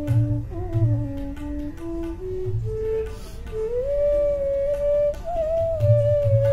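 Bansuri (Indian bamboo flute) playing a slow Hindustani melody with sliding ornaments; the line moves stepwise through low notes, then climbs about four seconds in to a long held high note. Tabla accompanies it with deep bass-drum strokes and lighter taps.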